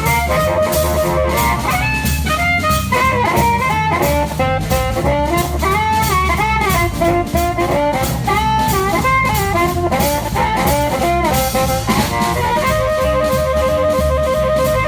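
Upbeat jazz music with a saxophone or brass melody over a drum kit.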